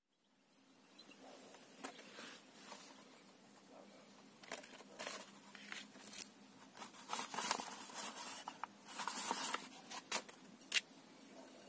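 A sheet of lined paper rolled into a tube being handled: paper rustling and crinkling, with irregular light clicks and knocks as it and the pot are picked up and set down, busiest in the second half, with a sharp click near the end.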